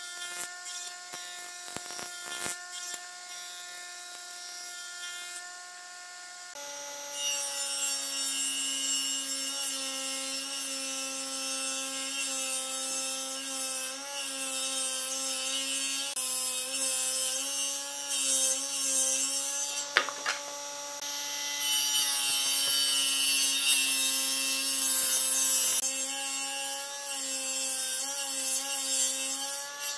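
A woodworking machine running with a steady hum. About six seconds in, a table saw starts cutting lengthwise through a round log: a steady motor tone under a loud hissing cut, with a sharp knock about twenty seconds in.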